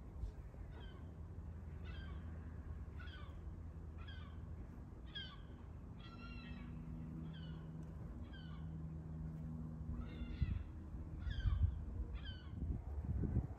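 An animal calling over and over: about a dozen short, high calls that slide downward in pitch, roughly one a second.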